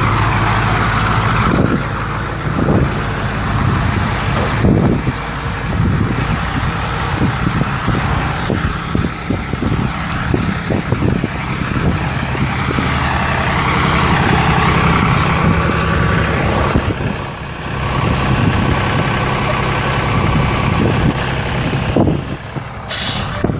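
Truck engine running steadily as the vehicle is driven a short way, with wind and road noise over the sound.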